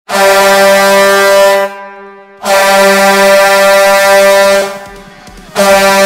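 Lehigh Valley Phantoms hockey goal horn, a deep air horn, sounding in long blasts: one of about a second and a half, a longer one of about two seconds after a short break, and a third starting near the end.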